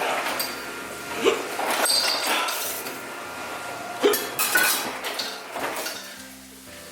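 Dishes and cutlery clinking and knocking in an irregular run, with the sharpest clinks about a second in and about four seconds in, some of them ringing briefly.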